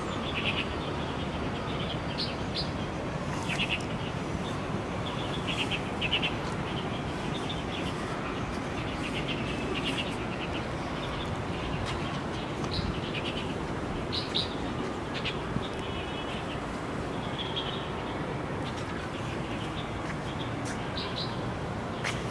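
Small birds chirping in short, repeated calls over a steady background hum.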